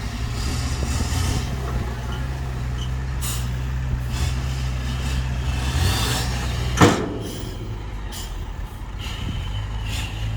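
Dump truck's diesel engine running steadily, with one short sharp burst of noise about two-thirds of the way through, after which the engine runs a little lower.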